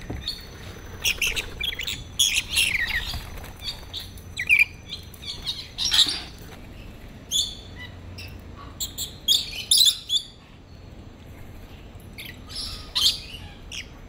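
Rainbow lorikeets giving short, shrill screeches and chirps in scattered bursts, with a lull about two-thirds of the way through.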